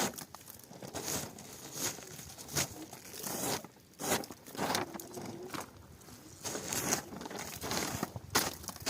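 Irregular rustling and crinkling, in short bursts about once every half second to a second.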